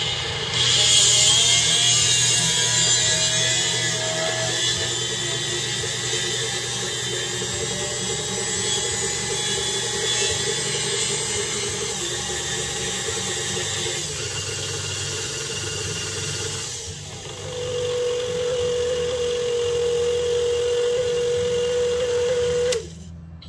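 KitchenAid tilt-head stand mixer's motor running with an empty bowl, its speed changed several times on the lever. A steady whine comes in after about 17 seconds, and the mixer is switched off just before the end.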